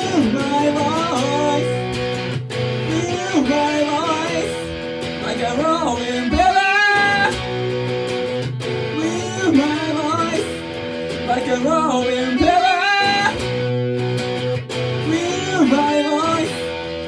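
Electric guitar played with a man singing a melody over it, the phrase returning about every six seconds.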